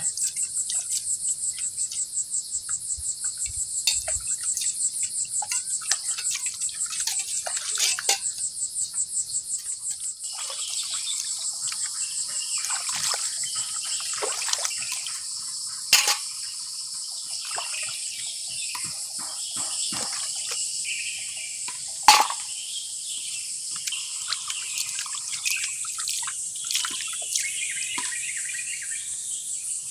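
Crickets and other forest insects chirp in a steady, high chorus that pulses fast for the first ten seconds or so. Under it, dishes are washed by hand: water splashes and plates and a mortar clatter, with two sharp knocks standing out in the second half.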